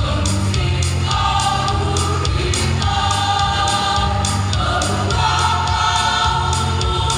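Choir singing in parts over instrumental accompaniment with a steady beat.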